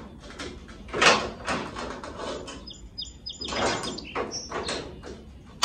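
A steel clamp and a piece of scrap angle steel scraping and clattering against the car body's sheet-metal gutter as they are fitted and set, with a few short high chirps about three seconds in and a sharp knock at the end.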